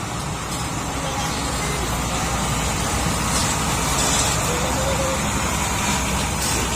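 Heavy dump truck passing close by, its diesel engine and tyres making a loud, steady noise that rises a little toward the middle. No telolet horn tune is played.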